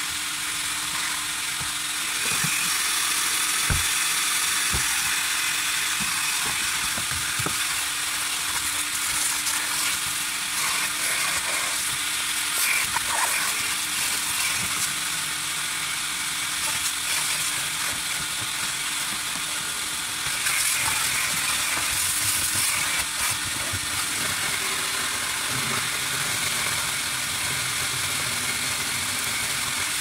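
Vacuum cleaner running steadily while vacuuming a car's interior: a loud hiss of rushing air over a low motor hum, growing louder for a couple of seconds about two seconds in and again about twenty seconds in. Two brief knocks near the start.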